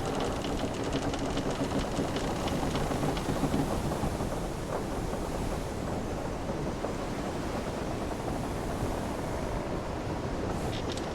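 Sailing-ship ambience: a steady wash of ocean waves and wind against a wooden hull, with the ship's timbers creaking now and then, most in the first half.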